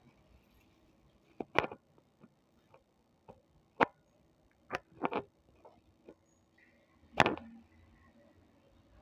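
A few sharp, irregular clicks and knocks, one here and there over several seconds. None of them rings on afterwards.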